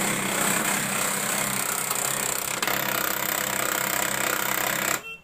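HP LaserJet 1005 printer's drive motor and gear train running at switch-on, a steady mechanical whirr that cuts off suddenly near the end. One gear turns while the lower gear cannot, jammed by a coin stuck inside the printer.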